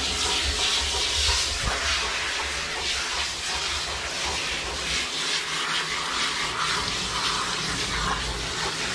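Water spraying from a handheld hose nozzle pressed into a Newfoundland dog's thick wet coat as the shampoo is rinsed out. It makes a steady hiss of spray spattering onto the fur and the shower floor.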